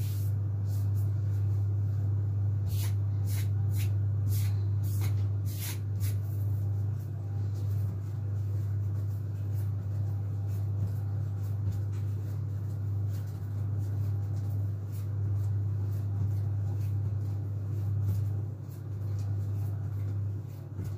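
A steady low hum, with a few light clicks and taps about three to six seconds in as hands knead sugar paste on a countertop.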